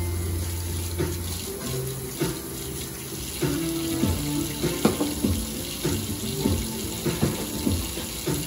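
Water running steadily from a tap into a sink, over background music with a bass line and a beat.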